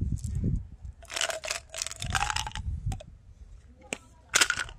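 Lotte Xylitol chewing-gum pellets rattling against each other and the plastic bottle, in clusters of quick hard clicks, with a short loud rattle near the end.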